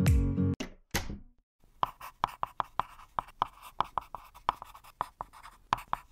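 Keyboard-typing sound effect: a run of short keystroke clicks, about five a second, beginning near two seconds in. It opens with a guitar strum ringing out and a single click about a second in.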